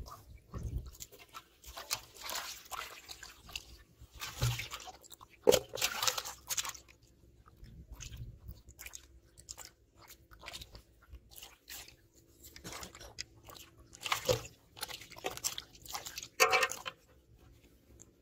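Freshly caught fish flapping in a shallow aluminium basin: irregular wet slaps, splashes and knocks against the metal, the sharpest about five seconds in.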